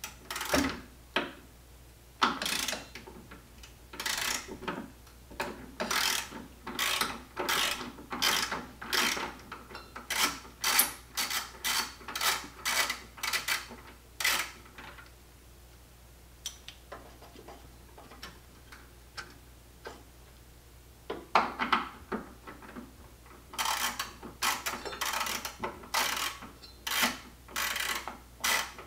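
Ratchet wrench with an extension and 10 mm socket clicking in short runs as the coolant tank's mounting bolts are loosened. There is a pause of several seconds about halfway through, then the clicking starts again.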